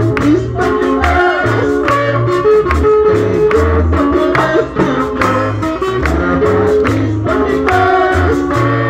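Live band music: an amplified bass line, guitar and drum beats, with a singer's voice over a microphone.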